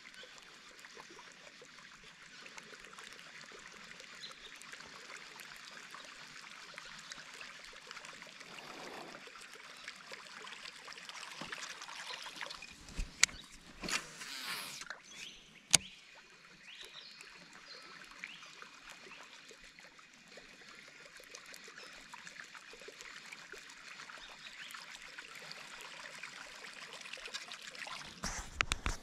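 Faint, steady outdoor night ambience beside a river, a high hiss with a few thin steady tones in it. There are a few sharp clicks and a short rustle about halfway through.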